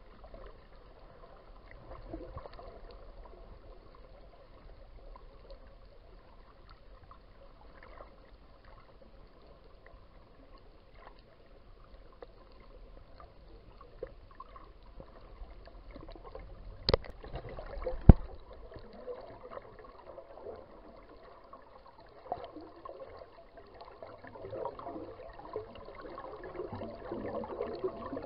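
Underwater water noise from a camera swimming among a pod of dolphins: a steady wash and gurgle of water with scattered faint clicks. There are two sharp clicks about a second apart a little past halfway, and the bubbling and gurgling grows louder near the end.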